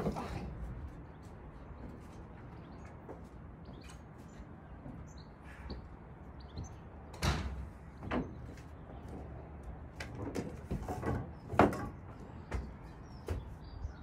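Irregular knocks and clunks against the van's metal body as the roof fan is worked into place: one sharp knock at the start, then a run of bumps in the second half. Birds chirp faintly in the background.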